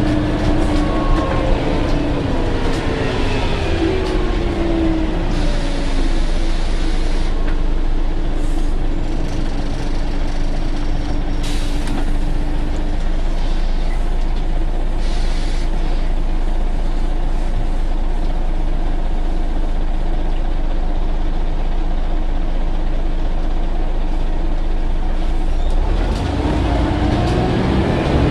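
Scania N94UA articulated bus heard from inside the saloon: the engine and driveline note falls as the bus slows, with hisses of compressed air from the brakes, then a steady low running rumble, and the note rises again near the end as the bus pulls away.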